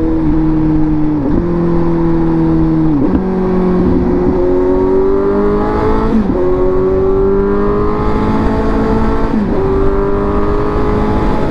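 Suzuki GSX-S750's inline-four engine under way, its pitch climbing steadily as the bike accelerates and dipping sharply at each gear change, about four times.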